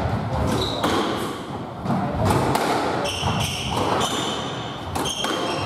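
Squash rally: the ball hitting rackets and court walls in a run of sharp thuds, mixed with short high squeaks of court shoes on the wooden floor and players' footsteps.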